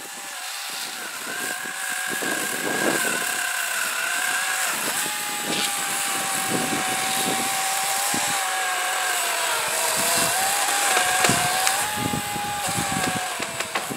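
Battery-powered chainsaw running at full speed and cutting up through tree branches, its motor whine dipping in pitch under load and recovering, with a few sharp cracks of wood.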